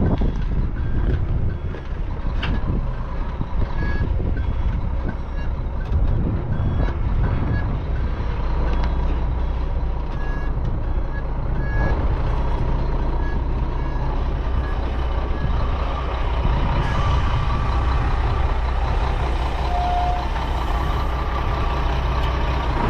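CAT 279D compact track loader's diesel engine working steadily while pushing dirt, with a reversing alarm giving short high beeps on and off.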